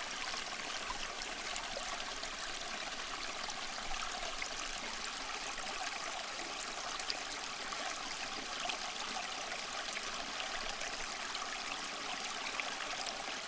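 Water of a small cement waterfall fountain trickling and splashing steadily.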